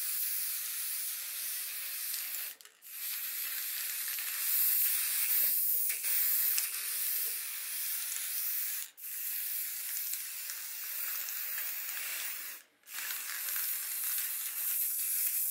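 Aerosol can of white spray paint hissing while a third coat of paint is sprayed on, in four long bursts with short breaks between them.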